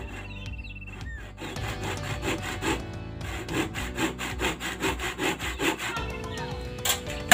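Handsaw cutting across a small albasia (sengon) log in quick back-and-forth strokes, about two a second, for several seconds. Right at the end, a single loud sharp knock.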